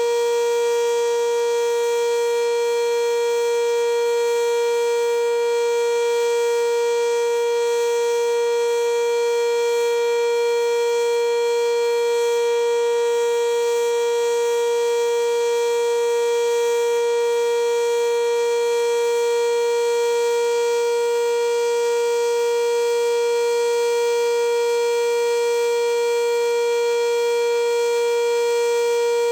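Sentry 3V8 outdoor warning siren sounding a steady alert tone for its weekly test: one held pitch with many overtones, at full speed with no rise or fall.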